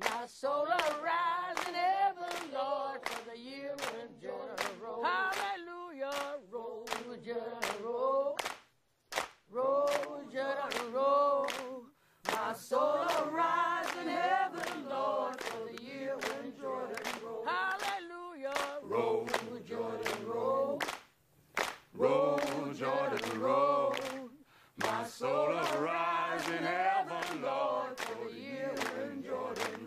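A cappella group of voices singing a spiritual-style song, with sharp hand claps keeping a steady beat.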